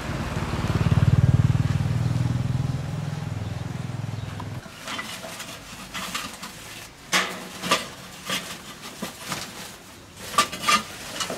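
A motor runs with a low, steady hum that swells and fades, then cuts off suddenly about four and a half seconds in. Scattered sharp clicks and knocks follow.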